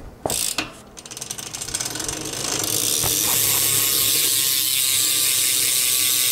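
Rear hub of a BMX bike freewheeling as the wheel is spun. A couple of clicks, then the pawls ratchet into a fast, loud, steady buzz that builds over the first few seconds.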